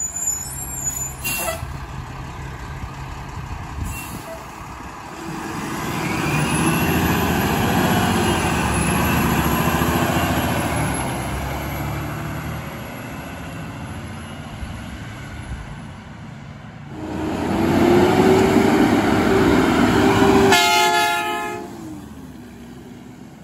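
Mack LR-series garbage truck's diesel engine running and revving up as the truck pulls away, with a slow rising and falling whine. A second Mack LR truck then passes and gives a blast of its Hadley air horn near the end.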